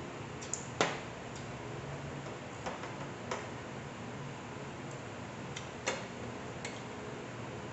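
Forks clinking and scraping against ceramic plates and a serving platter during a meal: about eight short, sharp clicks at irregular intervals, the loudest about a second in and another just before six seconds, over a steady low background hum.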